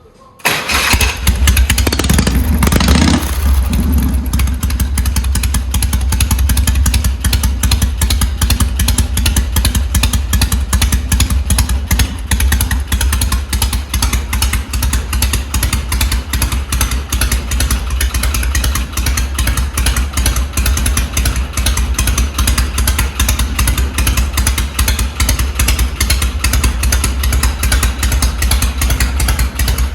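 Harley-Davidson V-twin fitted with an aftermarket silencer comes in about half a second in, revs briefly, then settles into a steady low-toned idle with the loping three-beat rhythm.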